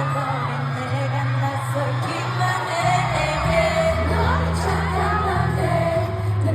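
Live pop music over a concert PA: women's voices singing a slow song over held bass notes and a backing track.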